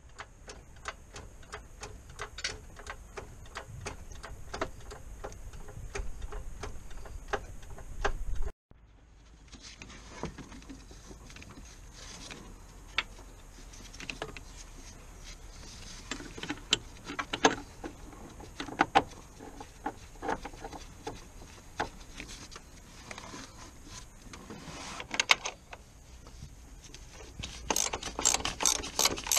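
Socket ratchet on a long extension clicking in runs as bolts at the top of the gearbox are wound in or out, with scattered knocks of the tool against metal in between and a fast run of clicks near the end.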